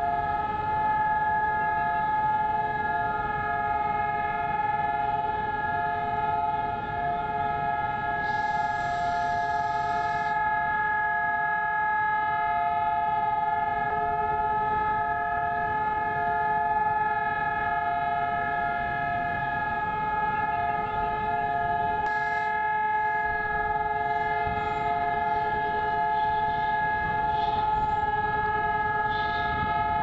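Israeli civil-defense siren sounding one steady, unbroken tone, the memorial siren that marks the nationwide two-minute standstill for Holocaust Remembrance Day.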